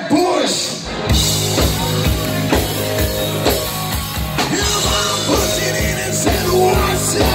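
Live rock band playing: electric guitar, electric bass and drum kit with a voice on the microphone. The bass and drums drop out briefly at the start and come back in with the full band about a second in.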